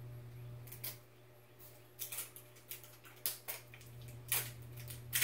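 Plastic wrapping on an L.O.L. Surprise toy ball crinkling and crackling as it is peeled off by hand: a string of short, sharp crackles starting about a second in, over a steady low hum.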